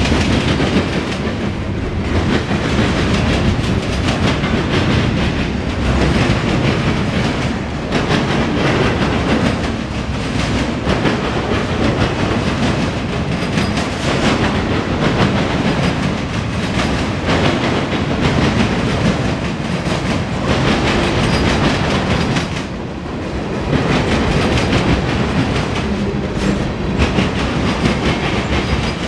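Freight cars of a passing CSX mixed freight, gondolas and then autorack cars, rolling by close on steel wheels: a steady loud rumble and clatter that eases briefly about three-quarters of the way through.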